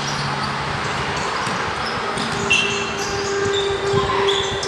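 Basketball game play on a concrete court: a basketball bouncing, with short high squeaks of shoes on the floor. A steady tone starts about halfway through.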